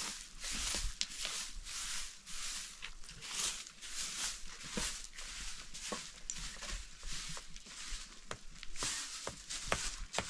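A short straw hand broom sweeping bare dirt ground in quick, regular strokes, about two a second, with a few sharp clicks mixed in.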